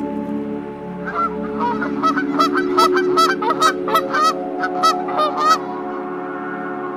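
Canada geese honking in a quick series of about a dozen calls, from about a second in until just past the middle, over a steady droning music bed.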